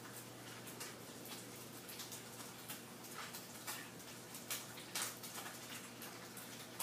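Faint, irregular ticks and light scratches from a cat's claws batting at a hard plastic object, a few louder clicks about two-thirds of the way in, over a steady low hum.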